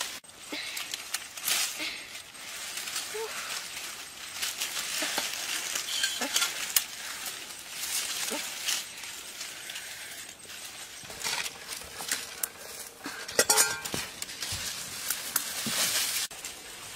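Dry leaves and thin twigs rustling and crackling as hands push through a tangle of brittle branches, with a burst of louder crackling late on.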